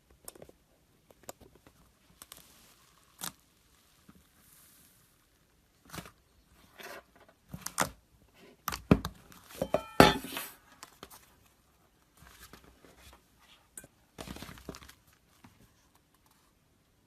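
Slime being squished, poked and stretched by hand: scattered sticky crackles, clicks and pops, busiest in the middle, with a brief squeak about ten seconds in.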